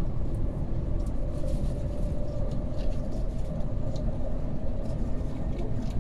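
Cabin noise of the Shanghai Transrapid maglev train accelerating through about 175 to 190 km/h: a steady low rumble with a faint whine creeping slightly up in pitch.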